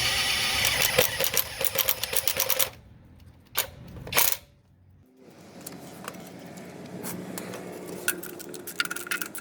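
Kobalt 24V brushless right-angle impact wrench hammering rapidly for about two and a half seconds, then stopping, followed by a couple of sharp metal clunks and light ticking and rattling of tools being handled.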